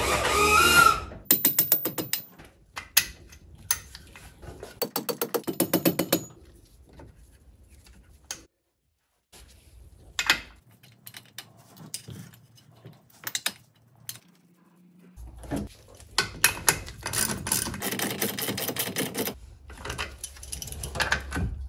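Small metal parts clicking and rattling as nuts are threaded onto the ends of an outdrive's trim-ram pivot rod and tightened with a wrench, including runs of quick, even clicks like a ratchet about two seconds in and again around five to six seconds in.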